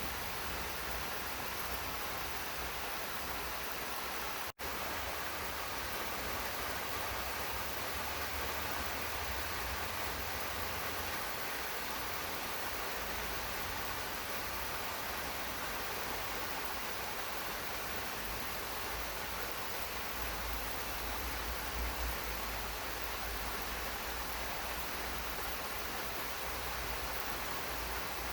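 Steady rain falling in a garden, an even continuous hiss with a low rumble underneath. The sound cuts out for an instant about four and a half seconds in, then carries on unchanged.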